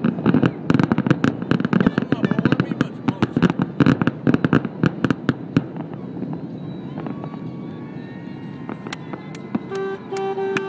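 Fireworks finale: a dense, rapid barrage of bangs and crackles that thins out after about five seconds into scattered pops. Near the end, three short horn blasts sound.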